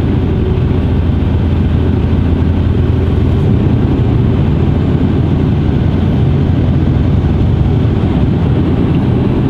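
Heavy truck's diesel engine running steadily at low revs, with tyre and road noise, heard from inside the cab while rolling slowly in traffic.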